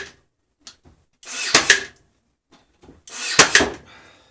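Pneumatic pin nailer firing pins into wood about every two seconds, each shot a short rush of air ending in sharp clicks.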